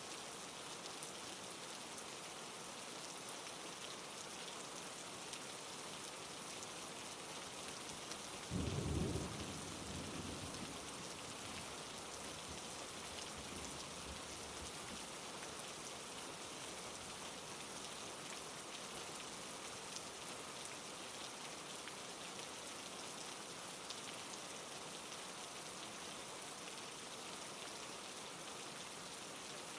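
Steady rain falling, with one clap of thunder about a third of the way in that rumbles low and fades over a few seconds.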